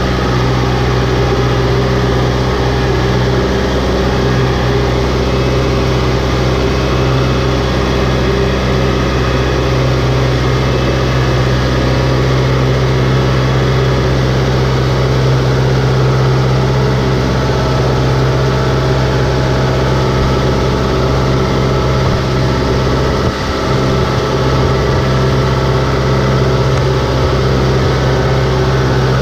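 Farm tractor's engine running steadily at a constant pitch as the tractor drives through a flooded, muddy rice paddy.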